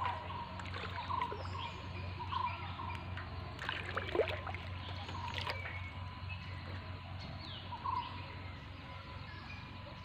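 Water trickling and dripping off a cast net as it is hauled in by hand over a canoe, with a few splashes about four and five and a half seconds in. Birds chirp several times over a steady low hum.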